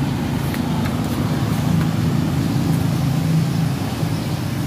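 A steady low mechanical hum, like a motor or engine running without change.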